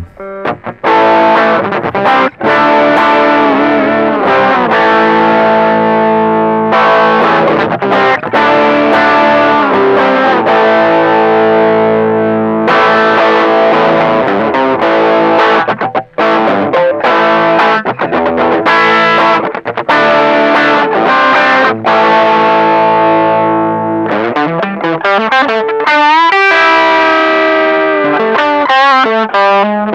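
Electric guitar played through a TC Electronic Dark Matter distortion pedal, heavily distorted chords ringing with short breaks between them, turning to bent, wavering single notes near the end. The pedal's treble control is being demonstrated.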